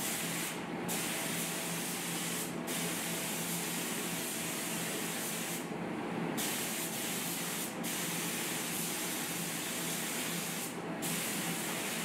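Gravity-feed spray gun hissing as it sprays wet-on-wet primer, the hiss cutting out briefly five times as the trigger is let off between passes.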